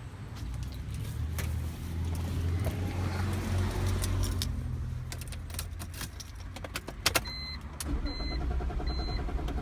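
BMW E46's engine cranking on the starter for about seven seconds without catching: a crank-no-start with zero fuel pressure at the rail, which the owner suspects is a failed fuel pump. The cranking stops with a few clicks, followed by a short electronic beep repeating about once a second.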